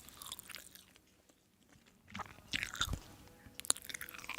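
A person chewing and biting food, with sharp clicks and crunches; the chewing stops for about a second early on, then the bites come louder in the second half.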